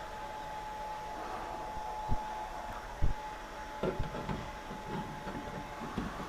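A few dull knocks and handling clatter from hand work on a ceiling fire detector, the loudest knock about three seconds in and a run of smaller ones after it, over a faint steady tone.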